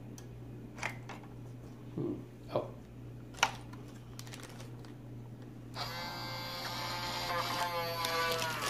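A few light clicks, then about six seconds in the Crayola Crayon Carver's small electric carving motor starts with a buzzing whine that wavers slightly in pitch as it cuts into a crayon.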